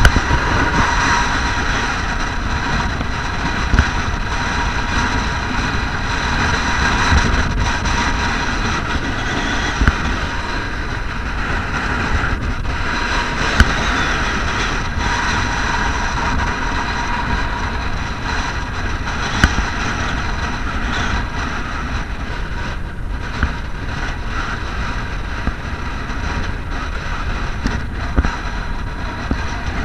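Strong wind blowing across the microphone as a steady, dense rumble, with a faint steady high whine over it and a few sharp knocks scattered through.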